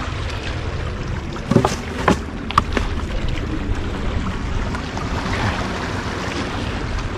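Wind rumbling on the microphone over a kayak on the water, with three sharp knocks between about one and a half and two and a half seconds in, and a short wash of water a little after the middle.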